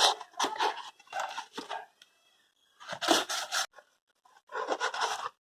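The wrapping of a firecracker pack being torn open by hand, crinkling and tearing in five or so short bursts.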